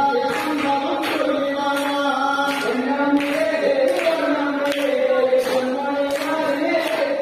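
Music: a chant-like song, sung notes held over a steady beat.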